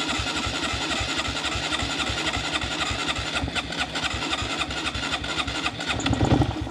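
Electric starter cranking the Honda Monkey 125's single-cylinder engine in a steady, even rhythm without it catching, with a brief louder surge just before the cranking stops. The engine is reluctant to fire after three months in storage.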